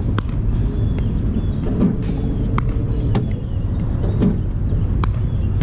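Pickleball drill with a Spinshot ball machine: a string of sharp pocks as the machine launches plastic balls and the paddle volleys them back, about one to two a second, over a steady low rumble.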